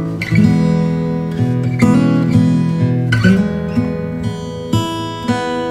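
Background music: an acoustic guitar playing chords, with a new strum or pluck every second or so.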